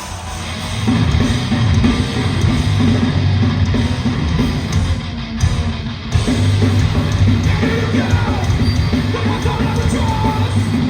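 Live hardcore band playing loud and heavy, with distorted guitars, drums and shouted vocals. The full band comes in about a second in and drops out briefly around the middle.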